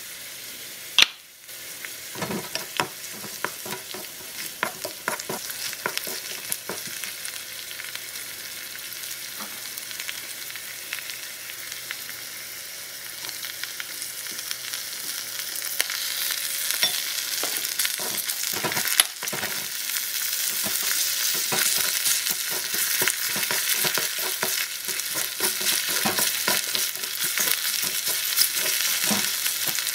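Garlic and onion frying in a miniature aluminium wok, a steady high sizzle with many small clicks and scrapes of the spoon and wooden spatula stirring against the pan. A sharp tap comes about a second in, and the sizzle grows louder from about halfway.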